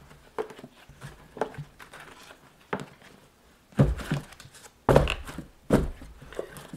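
Paperback books being handled in a cardboard box: a scatter of soft knocks and thuds as copies are set down and squared up against each other, with two louder thumps about four and five seconds in.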